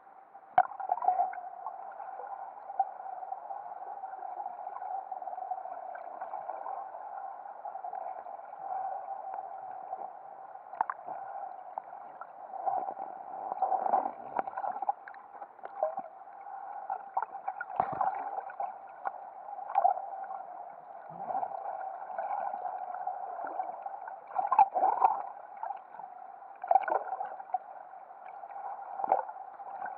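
Muffled underwater sound picked up by a submerged camera: a steady hum with irregular gurgles and knocks from moving water.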